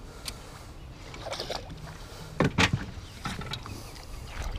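Water and wind noise around a small open jon boat on a river, broken by a few short, sharp knocks or splashes, the loudest about halfway through.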